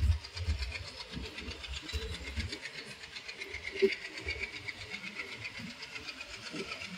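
Kollam Express passenger train rolling along, heard from an open coach doorway: wheels clattering over the rails with the coach rumbling and rattling. The rumble is heavier for the first couple of seconds, and there is one sharper knock about four seconds in.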